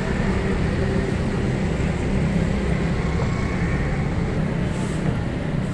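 Steady low rumble of street traffic, engine noise with a hiss and no distinct events.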